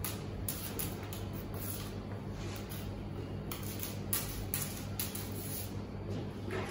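A cloth wiping a stainless steel counter top in repeated strokes, heard as irregular soft swishes, over a steady low hum.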